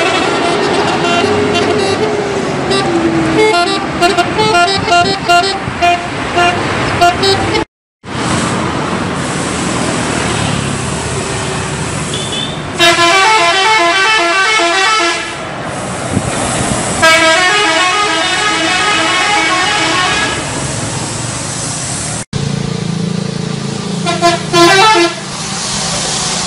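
Indonesian bus 'telolet' musical air horns playing short multi-note tune phrases, several times over, with bus engine and traffic noise between them. The sound cuts off abruptly twice.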